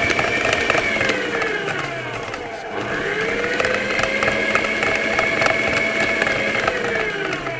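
Electric stand mixer beating butter and sugar in its bowl: a steady motor whine with fine clicking. The pitch sinks about two seconds in, climbs back a second later, and slides down near the end as the mixer winds off.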